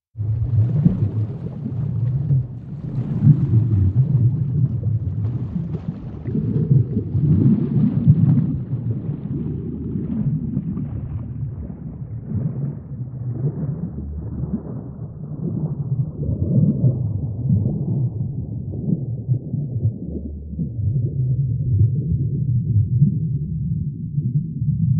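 Low, muffled rumbling water ambience with an irregular swell and gurgle. It begins abruptly after a brief gap and grows duller over the second half.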